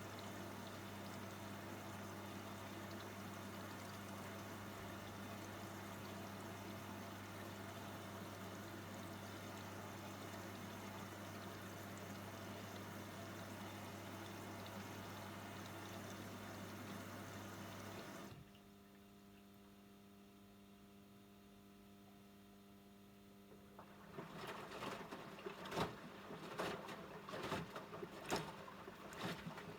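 AEG LS60840L washing machine taking in water: a steady rush of water with a mains hum from the inlet valve, which cuts off suddenly about eighteen seconds in. After a few seconds of low hum, the drum starts turning, with irregular knocks and sloshing from the wash load.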